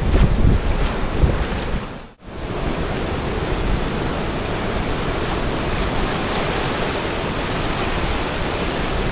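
Sea surf washing onto a beach, with wind buffeting the microphone as a heavy rumble in the first two seconds. After a brief break about two seconds in, the surf goes on as a steady rush.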